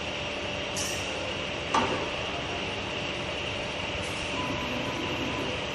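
Steady hum of factory machinery around a storage-beam welding machine, with a short hiss about a second in and a sharp metal clank just after, then another faint hiss near the middle.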